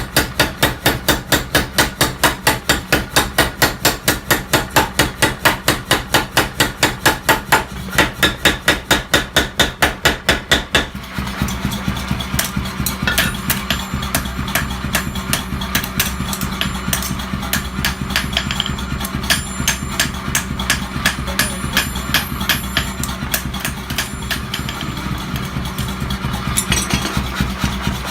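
Hammer blows on steel in an even, rapid rhythm, about four a second, for roughly the first eleven seconds. Then the hammering stops suddenly and a motor runs steadily with light metallic clicking.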